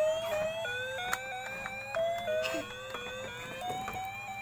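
Electronic toy sound: a looping beep-tone rising in short sweeps, about three a second, with a few light clicks of handling.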